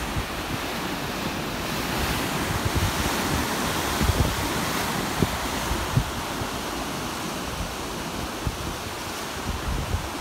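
Heavy surf from a typhoon swell washing and breaking over shoreline rocks and against a concrete seawall, growing fuller about two seconds in. Wind buffets the microphone in irregular low thumps.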